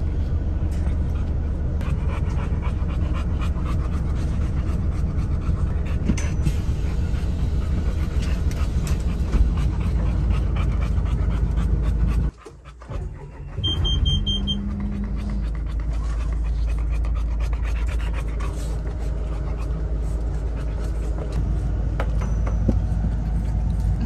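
A dog panting steadily inside a moving car, over the low rumble of the road. About halfway the sound drops out briefly, followed by a few quick high beeps.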